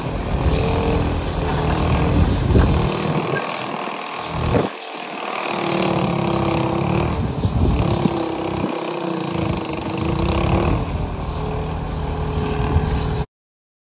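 Antique cable-operated excavator working its bucket: the machinery and hoist run steadily, with a gear whine that comes and goes and eases twice, then cuts off suddenly near the end.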